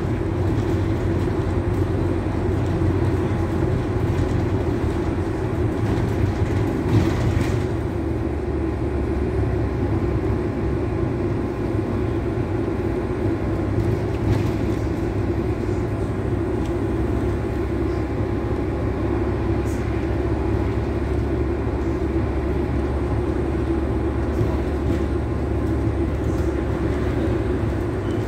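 Steady running drone of a double-decker bus in motion, its engine and road rumble heard from inside on the upper deck.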